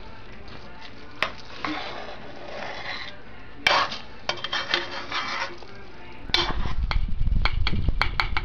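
Metal fork stirring macaroni noodles in a nonstick saucepan, clinking and scraping against the pan in short bursts. From about six seconds in, a low rumble joins, with quicker, sharper clicks.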